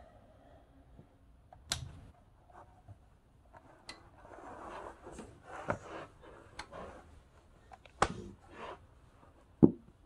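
Handling sounds as a power plug is pulled out of a plastic surge-protector strip and the cord is moved over carpet: scattered sharp clicks and knocks with some rustling, the sharpest knock near the end.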